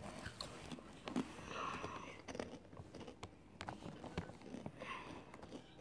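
Faint chewing and crunching as a snack is eaten, with many small scattered clicks.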